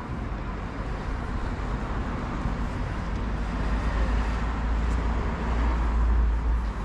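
City street ambience dominated by road traffic: a steady low rumble of passing vehicles that swells louder from about four seconds in, easing off near the end.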